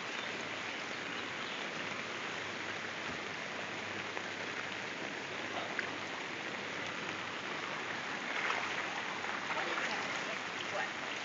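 Heavy rain falling steadily, a continuous even hiss that swells slightly a little past the middle.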